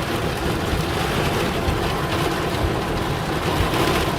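Strong thunderstorm wind gusts and heavy rain battering a van, heard from inside the cabin: a steady rushing noise with a heavy low buffeting rumble.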